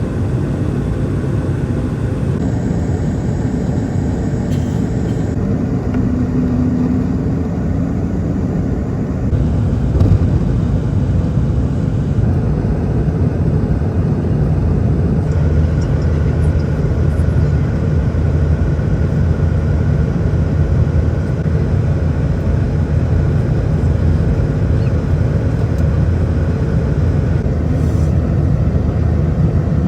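Cabin noise inside an Airbus A220-300: a steady low rumble of its Pratt & Whitney PW1500G geared turbofan engines and the airflow, with abrupt small changes in tone every few seconds.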